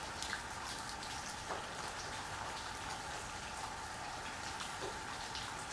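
Light sprinkling rain pattering steadily, with scattered single drops ticking.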